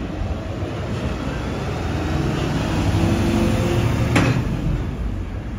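City tram passing close by, its rumble building to a peak and then easing, with one sharp clack about four seconds in.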